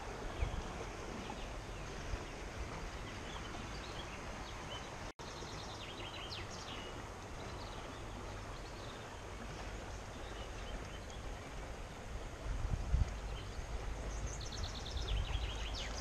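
A shallow river running over stones, a steady rushing, with small birds chirping now and then, most clearly about six seconds in and again near the end. A low rumble rises briefly about three-quarters of the way through.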